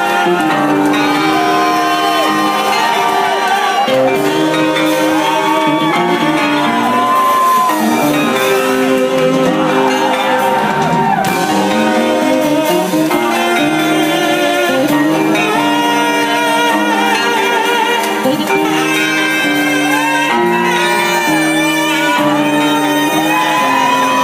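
Live band playing loud, with a saxophone, an electric guitar and drums. A high melodic line slides and bends in pitch over held, changing chords.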